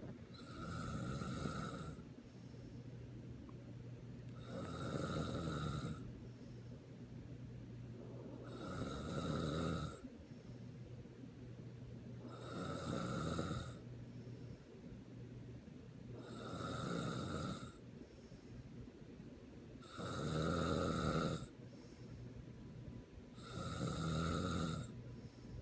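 Snoring: seven long snores, about one every four seconds, with a faint steady low hum between them.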